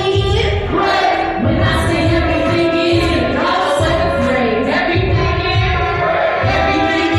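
Live music: sung vocals over a pulsing bass beat.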